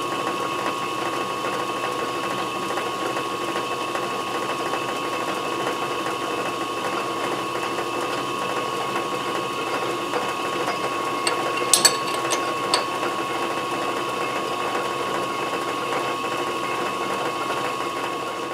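Small metal lathe running steadily in low gear, a steady gear whine over the motor, while a die in a tailstock-held guide cuts threads on a quarter-inch brass rod. A brief cluster of sharp metallic clicks comes about two-thirds of the way through.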